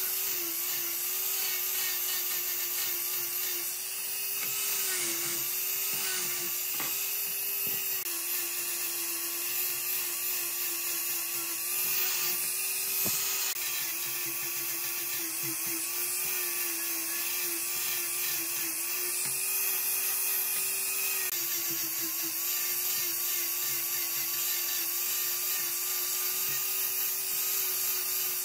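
Electric angle grinder with a sanding disc running steadily while sanding the curved edge of a wooden piece. Its motor whine sags slightly in pitch now and then as the disc is pressed into the wood, over a hiss of abrasive on wood.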